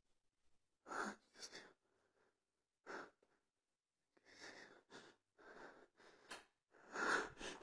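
A person breathing close to a phone's microphone: short, breathy bursts, about eight over several seconds, with near silence between them.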